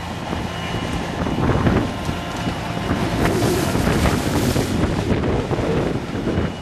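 Diesel engines of a ride-on tandem road roller and a mini excavator running, with wind buffeting the microphone. About three seconds in, gravel pours from the excavator's bucket with a hiss that lasts over a second.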